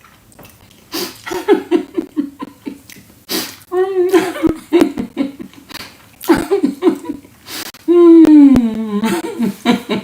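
A person laughing in short rapid runs of voiced bursts, with a long falling laugh or cry about eight seconds in that is the loudest sound.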